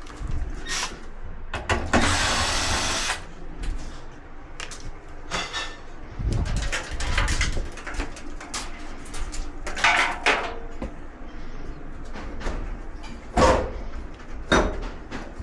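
Knocks, clicks and a scrape of metal panels and tools being handled during dryer disassembly, with a rough sliding hiss lasting about a second, about two seconds in.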